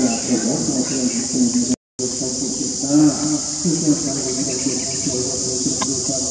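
Steady high-pitched insect chorus of crickets, with lower wavering voices over it. The sound drops out briefly about two seconds in.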